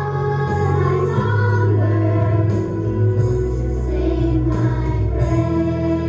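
Children's chorus singing a slow song over an instrumental accompaniment, with long held notes and a steady sustained bass.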